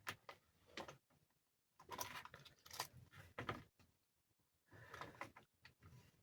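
Faint clicks and scrapes of small model wagon parts being handled and fitted together, in a few short clusters with quiet gaps between.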